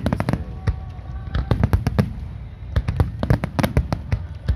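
Aerial firework shells bursting in rapid, irregular bangs, with a short lull about half a second in followed by a dense run of bangs.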